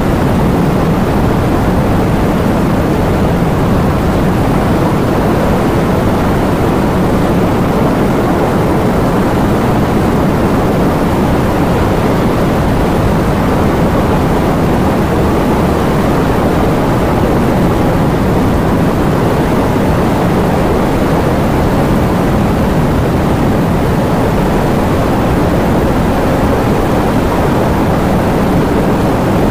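Heavy rain falling, a steady, even wash of noise with no breaks or separate claps.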